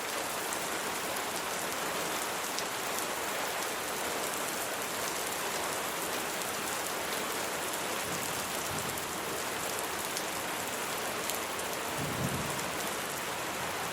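Steady rain falling, a dense even patter with scattered individual drops, and a brief low rumble about twelve seconds in.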